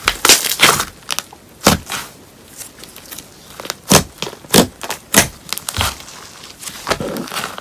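Paper-clay slime being squeezed and pressed by hand, giving a series of short crackly squishes and pops with quiet gaps between them.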